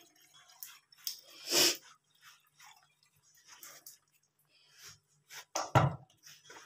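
A hand mixing and pressing flour with water in a steel bowl, with scattered scraping and rustling. There are two louder sudden bumps, one about a second and a half in and one near the end, against a faint steady hum.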